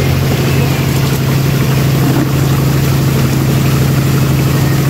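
A motor running with a steady low hum that does not change.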